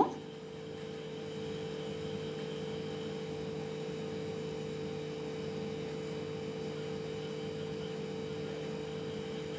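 A steady hum with a constant mid-pitched tone, even throughout, from an electrical appliance or fan running in the kitchen.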